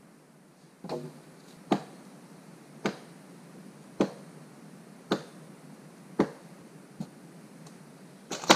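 Dry wooden poles and branches knocking and cracking as an old branch shelter is pulled apart: a series of sharp knocks roughly one a second, with a louder cluster of two or three near the end.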